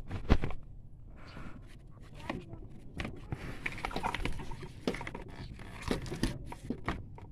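Rustling and irregular sharp clicks of hands handling wiring and plastic around a truck's pedal linkage under the dashboard, with one louder click about a third of a second in.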